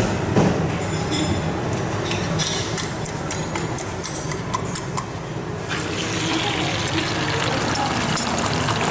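Oil hissing in a hot frying pan, with a spoon clinking against a stainless steel bowl as eggs are beaten. About six seconds in the hiss grows louder as the beaten eggs are poured into the pan and start to fry.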